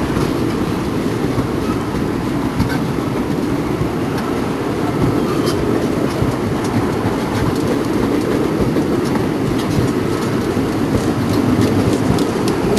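A rake of loaded sugarcane bins rolling past on a narrow-gauge cane tramway: a steady clatter of wheels on rail, with occasional sharp clicks.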